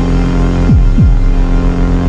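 Electronic music: a steady synthesizer drone with a throbbing low pulse, and two quick falling pitch sweeps about two-thirds of a second and one second in.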